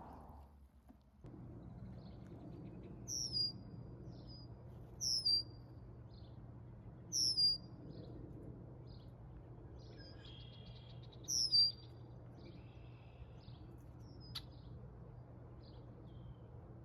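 Wild songbirds singing. One repeats a short, high, down-slurred note, loudest four times about two seconds apart, among softer chips and a couple of brief buzzy trills. A steady low hum sits underneath.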